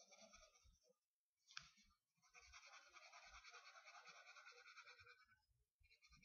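Faint scratching of a drawing tool's tip on paper, rubbed quickly back and forth to colour in a small shape in red. A few short strokes, a brief gap with a sharp tick, then about three seconds of fast, even scribbling, a pause, and more strokes near the end.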